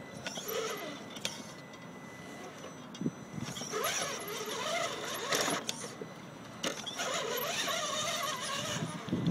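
The electric drive of a scale RC rock crawler, a Holmes Hobbies Torquemaster Sport 540 35-turn brushed motor and its gears, whining in three throttle bursts as the truck climbs over rocks. The pitch rises and falls with the throttle, with quieter pauses in between.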